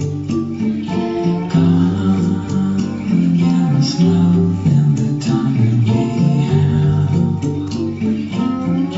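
Music played on guitar, with strummed chords over a bass line and some singing.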